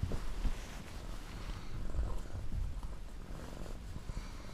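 Domestic cat purring steadily, a low pulsing rumble.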